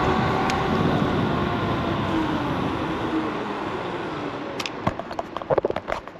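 Solar FF Lite dual-motor electric scooter riding with wind and road noise, its motor whine falling in pitch as it slows down. About four and a half seconds in, a run of clicks and knocks from a hand handling the camera takes over.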